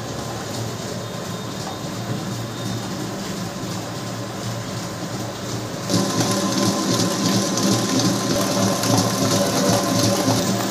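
Commercial planetary cake mixer running steadily, its motor and gearing driving a wire whisk through sponge-cake batter. The sound gets louder and brighter about six seconds in.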